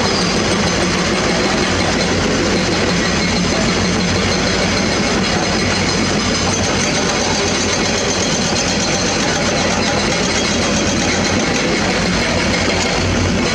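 Diesel engines of hydraulic excavators running steadily under load.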